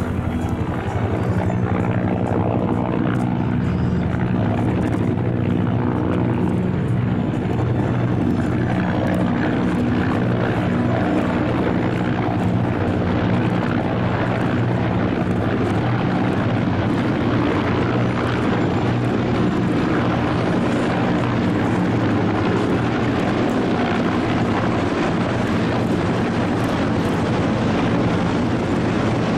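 Formation of military helicopters (Bell UH-1J utility helicopters with AH-1S Cobra and OH-6 helicopters) flying over: a steady, dense rotor and turbine drone with several low hums layered together. Strong wind buffets the microphone.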